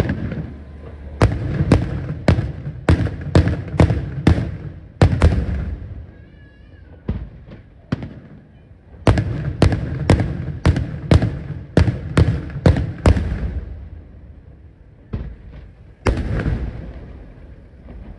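Daylight fireworks: aerial shells bursting in sharp bangs, about two a second, in two rapid volleys of eight or nine reports each with a pause of a few seconds between them. A few more bangs follow near the end.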